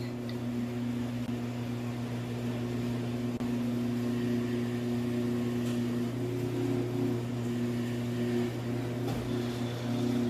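Electric garage door opener running steadily with a low motor hum as it drives the door.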